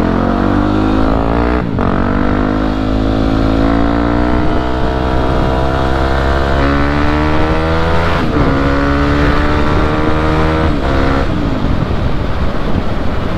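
Yamaha WR250 supermoto's single-cylinder four-stroke engine pulling through the gears, exhaust open with the dB killer removed. The pitch climbs in each gear and drops briefly at four upshifts, about 2, 4½, 8 and 11 seconds in, before the throttle eases off near the end. The note is full and round.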